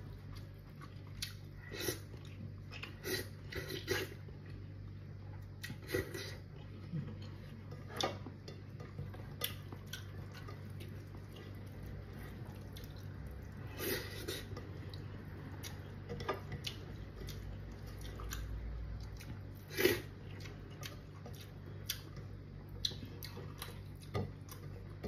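A person eating rice by hand: quiet chewing and mouth sounds, with scattered short clicks of fingers and food against a plate, over a steady low hum.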